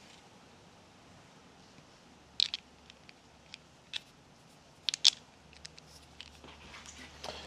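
A few sharp clicks and taps from fork parts and tools being handled: two loud ones about two and a half and five seconds in, with fainter ticks between and after.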